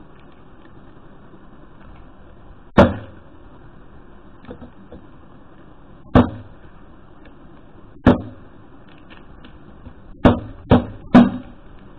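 Six sharp knocks of a plastic water bottle smacked down on a self-inflating foil balloon packet on an air hockey table top, to burst its inner pouch so the balloon inflates. They come a few seconds apart at first, then three in quick succession near the end.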